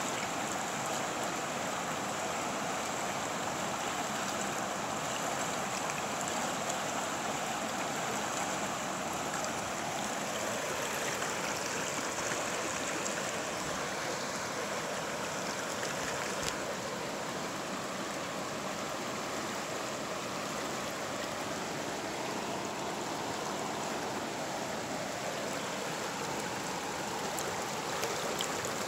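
Lehigh River rushing over shallow riffles and small rapids: a steady, even rush of moving water.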